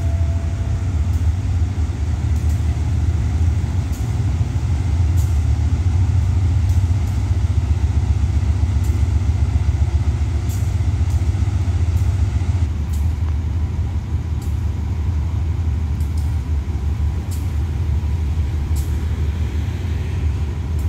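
Diesel locomotive GEA 4538 running with a steady, deep rumble.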